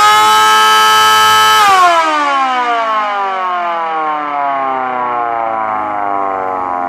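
3D-printed air raid siren sounding a loud, steady tone for about a second and a half, then sliding slowly down in pitch as its rotor spins down.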